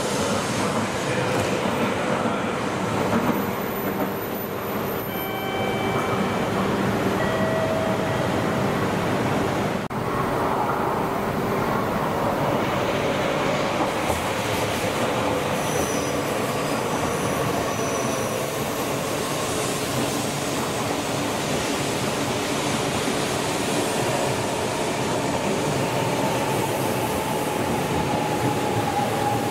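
E5-series Shinkansen pulling out past the platform with a steady rush of running noise. Then an E4-series Max double-decker Shinkansen slows into the station, with a faint whine that slowly falls in pitch near the end as it comes to a stop.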